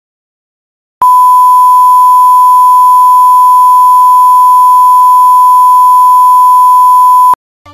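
Electronic test tone: one loud, steady, pure beep held for about six seconds, starting about a second in and cutting off sharply, the reference tone laid at the head of a recording.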